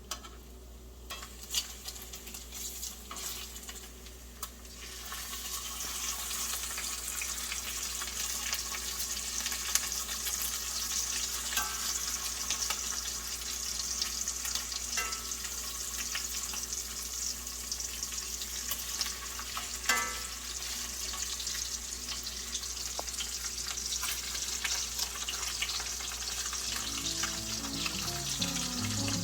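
Bacon frying in grease in a cast iron skillet. It is faint with a few ticks at first, then becomes a steady, dense sizzle from about five seconds in, with a single sharp knock about twenty seconds in.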